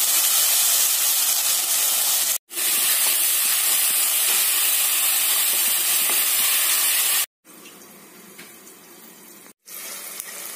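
Onion and tomato masala with curry leaves sizzling in hot oil in a nonstick pan as it is stirred with a wooden spatula, the tomatoes cooking down soft. The sizzle cuts out briefly three times and is much quieter from about seven seconds in.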